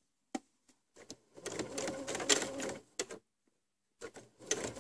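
Electric sewing machine stitching through cotton patchwork pieces in two short runs, with a pause of under a second between them, and a single click before the first run.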